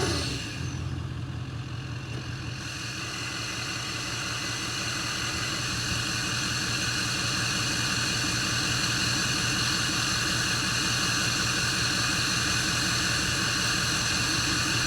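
Ford F-250's 6.7 L Power Stroke turbo-diesel V8, emissions-deleted and fitted with a KC Turbos retro turbo kit, dropping back from a rev and then idling steadily. A high, steady turbo whistle sits over the low engine note and grows a little stronger after a couple of seconds.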